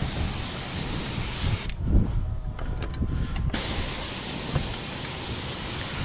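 Airless paint sprayer spraying roof coating with a steady hiss. The spray stops for almost two seconds about a second and a half in, then resumes, with a low bump during the pause.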